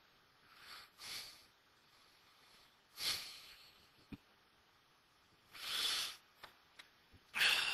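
A man's breaths picked up by a handheld microphone held close to his mouth: several short, breathy exhalations a second or two apart, the strongest about three seconds in and around six seconds, with a small click about four seconds in.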